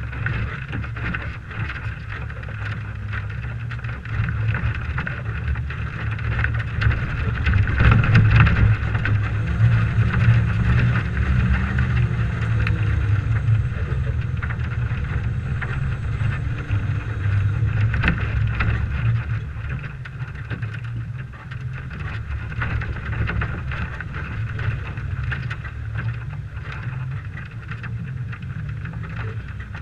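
Stock 1998 Toyota 4Runner engine running under load as the truck crawls over dirt track, heard from a camera on the hood, with wind on the microphone and scattered knocks and rattles from bumps. The engine gets louder a few seconds in, stays up for a while, then eases off in the second half.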